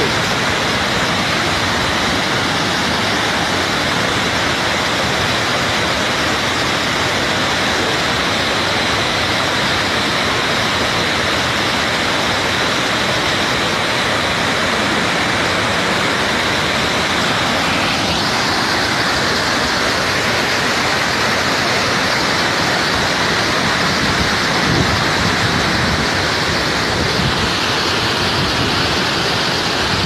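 A rain-swollen waterfall with a heavy flow of water falling and rushing over rocks, steady and loud.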